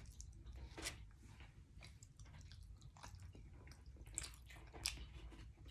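Faint, wet chewing and small mouth clicks from a person eating a mouthful of liver with rice and gravy, with a few slightly louder smacks scattered through it.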